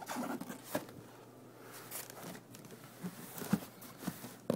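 Hands handling a cardboard shoe box: scattered light taps and clicks with faint rubbing as the box is moved and turned.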